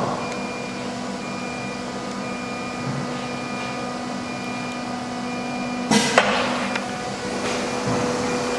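A CNC router machine running with a steady electrical hum and a high tone that comes and goes in short dashes. About six seconds in there is a short, sharp hiss-like burst.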